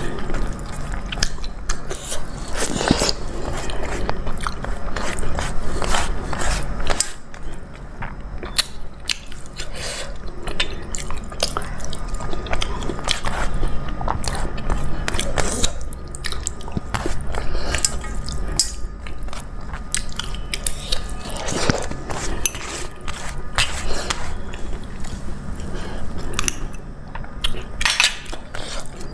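Close-miked chewing and mouth sounds of a person eating a vegetarian meal of dal, rice and vegetables, with many small clicks and smacks.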